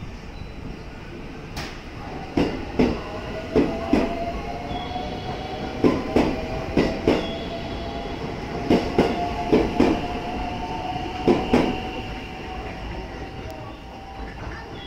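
JR West 223 series electric train pulling out of the station past the platform: its wheels clack over the rail joints in quick pairs as each bogie crosses, under a motor whine that rises slowly as it gathers speed.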